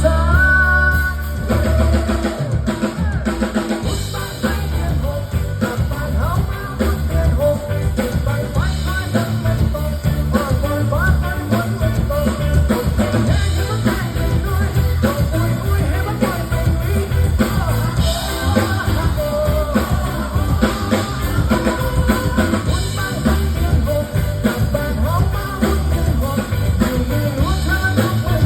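A band playing a pop-rock song live, a male singer's voice over drum kit and bass.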